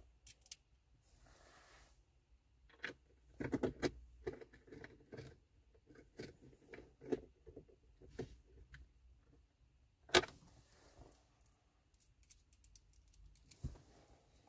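Small metal parts, screws and a screwdriver bit, clinking and rattling as they are handled, with a sharper click about ten seconds in and another near the end.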